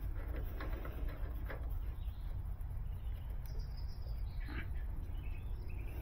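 Faint clicks and scrapes of a brass fitting being turned onto an air-conditioner service port by hand, over a steady low rumble, with a few faint bird chirps near the end.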